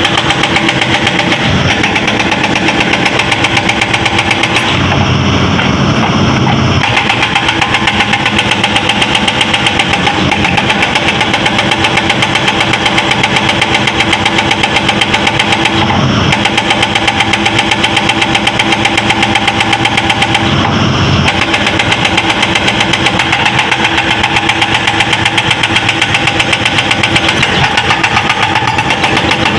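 Excavator-mounted hydraulic breaker pounding rock in a rapid, steady run of blows over the excavator's running diesel engine. The hammering changes briefly a few times, as the tool is repositioned.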